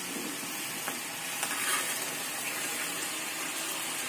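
Sugar syrup boiling hard in a small pan, a steady fizzing bubble, while a steel spoon stirs it with a few light clicks against the pan.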